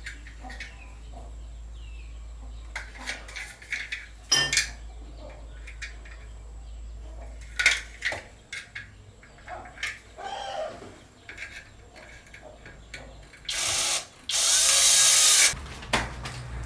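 Power drill running in two short bursts near the end, the second about a second long, after scattered knocks and clicks of tools being handled.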